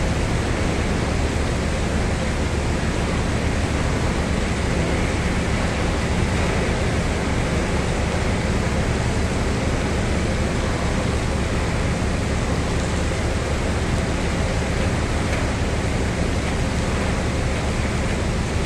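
Steady industrial machinery noise: an even, unbroken hiss with a low hum underneath.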